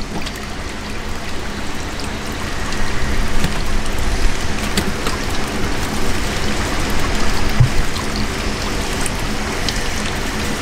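Steady rushing, water-like noise with a faint low hum underneath, and a few light clicks as iced fish are handled on the boat deck.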